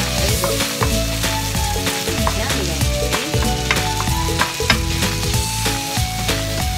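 Spaghetti sizzling in a hot frying pan as it is tossed and stirred with a wooden spatula, with frequent scrapes and light clacks of the spatula against the pan. Background music plays underneath.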